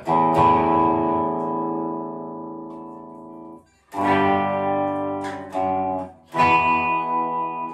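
A 1989 Hohner Arbor Series single-cut electric guitar with EMG pickups, strummed through an amp with its volume knob rolled back, so the distortion cleans up toward a mild crunch. One chord rings and fades, stops briefly, and then three more chords are struck.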